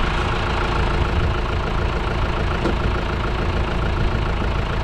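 Tractor engine running at a steady idle.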